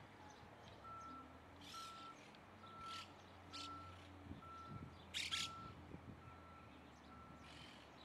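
Faint reversing alarm of a vehicle beeping eight times at an even pace, a little under a second apart, with harsh squawks of monk parakeets over it, the loudest a little past the middle.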